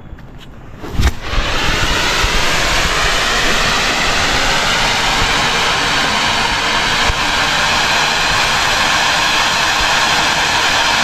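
Rajeshwari 7 Star fountain firework catching with a sharp pop about a second in, then jetting sparks with a steady loud hiss.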